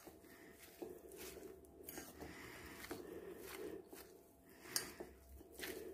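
A hand squeezing and mixing mashed boiled potato with peas, chopped capsicum, onion and green chilli in a glass bowl: faint, irregular squishing with small clicks, and a sharper click a little before the end.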